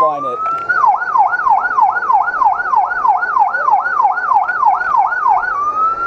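Electronic emergency-vehicle siren. A slow wail switches to a fast yelp of about three sweeps a second, then returns to a slow wail near the end.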